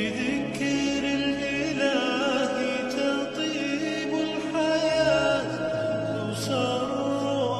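Background music of chant-like singing: long held vocal notes with wavering ornaments over a low sustained drone.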